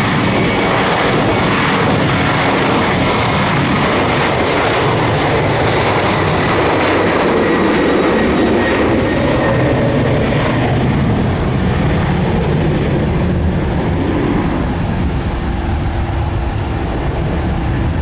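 Boeing 737 freighter's twin jet engines at takeoff power, a loud steady roar through the takeoff roll up to rotation, with a faint high whine above it.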